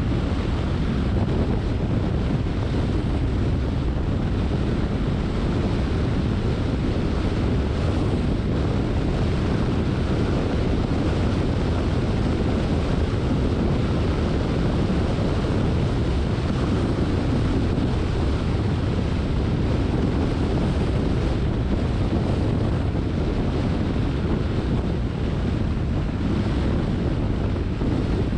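Steady road and wind noise of a car driving on rain-wet streets: an even low rumble with a hiss over it.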